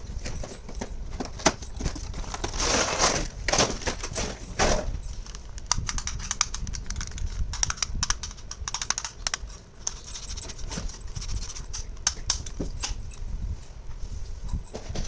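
Small plastic toy kitchen pieces being handled and unpacked: repeated light clicks and taps, with a longer rustle of packaging about three to five seconds in.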